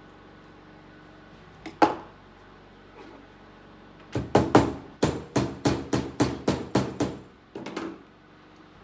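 Small hammer striking silver stock in short ringing blows: a double tap near two seconds in, then a quick run of about a dozen blows at roughly three a second, and two more near the end.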